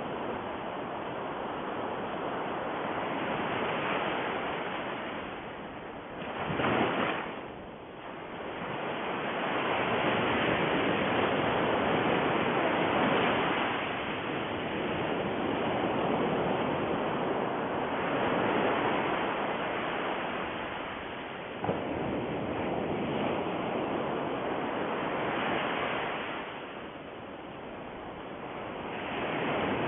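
A steady rushing noise that swells and ebbs every few seconds, like surf, with one sharper surge about seven seconds in.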